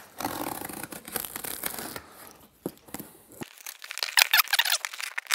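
Corrugated cardboard box flaps being pried and torn open at a stapled top seam: rustling, scraping and tearing cardboard with scattered sharp clicks.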